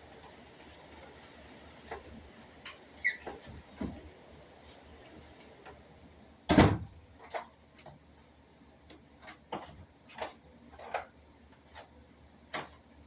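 Scattered clicks and knocks at irregular intervals, with one loud thump about six and a half seconds in.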